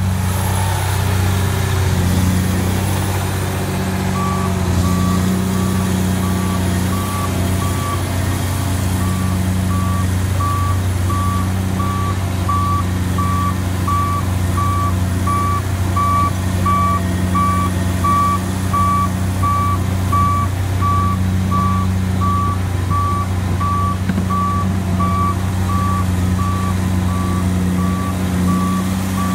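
Tigercat LX822C tracked feller buncher's diesel engine running steadily as the machine moves. Its backup alarm starts beeping about four seconds in, a steady beep roughly twice a second.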